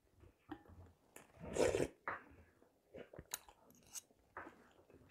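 Quiet close-up eating sounds of a person having soup: a light clink of a metal spoon on the porcelain bowl near the start, one louder noisy sound about a second and a half in, then chewing and small mouth clicks.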